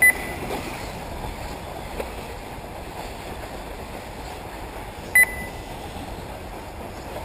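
Two short, high electronic beeps about five seconds apart over a steady outdoor hiss: the race lap-timing system beeping as a buggy crosses the lap-counting loop.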